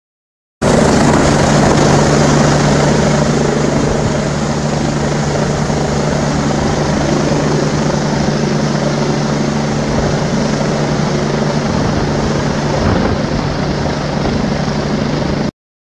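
Helicopter flying low overhead: loud, steady rotor and engine noise with a constant low hum. It starts abruptly about half a second in and cuts off abruptly near the end.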